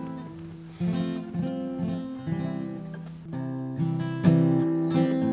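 Acoustic guitar strummed and picked, playing the opening of a folk song, with a firmer strum about a second in and a louder passage from about three seconds.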